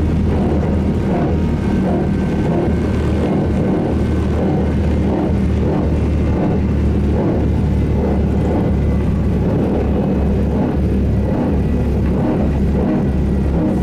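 SVARZ-MAZ-6235.00 trolleybus running on its route, heard from inside: a steady loud rumble of motor and road noise whose low part keeps cutting in and out, with a faint high whine.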